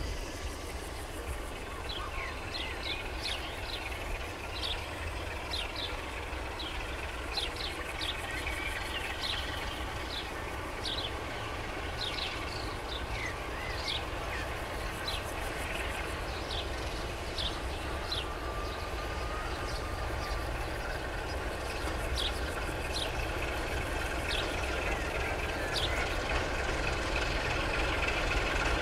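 Sulzer-engined 060-DA diesel-electric locomotive approaching slowly with a passenger train, its engine rumble growing a little louder toward the end. Songbirds chirp repeatedly throughout.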